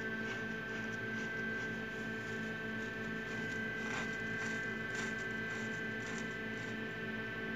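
Chicken eggs being turned by hand on a straw bed, giving faint light clicks as the shells knock together, the clearest about four and five seconds in, over a steady electrical hum.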